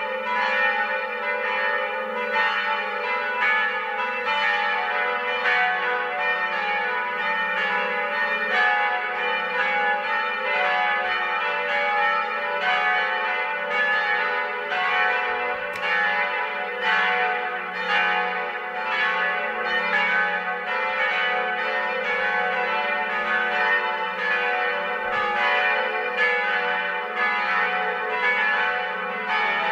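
Eight swinging church bells ringing together, a peal tuned F-sharp, A, C-sharp, E, F-sharp, G-sharp, A and B. Their strikes overlap in a steady, unbroken ringing, with the two deepest bells humming underneath.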